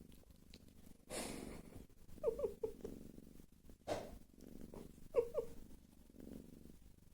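A sleeping cat snoring: slow, noisy breaths, with short squeaky wheezes twice and one sharper, sudden breath about four seconds in.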